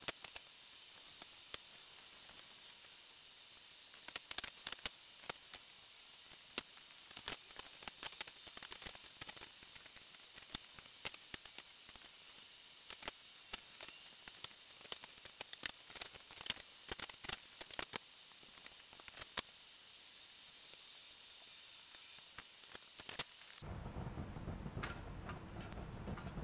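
Small clicks and taps of hard plastic parts being handled in a metal tray, scattered and irregular from about four seconds in, over a steady faint hiss. Near the end the hiss gives way to a lower, fuller background sound.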